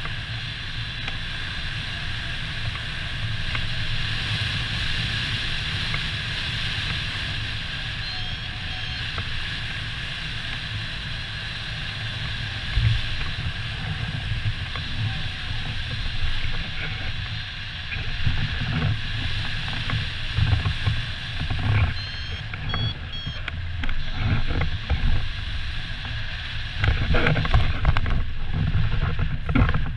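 Steady rush of wind over the microphone from the airflow past a hang glider flying low, turning rougher and gustier in the second half. Several heavier bumps near the end as the glider touches down on the grass.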